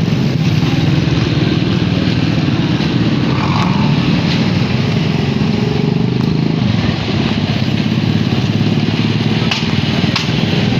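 Motorcycle engine running steadily while under way on the road, with a few sharp clicks near the end.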